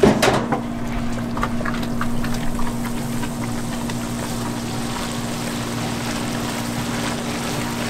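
Hot hard-candy sugar syrup in a copper kettle, bubbling and hissing as it steams and is stirred with a long wooden paddle, just after the flavoring has gone in. A few knocks in the first couple of seconds, over a steady low hum.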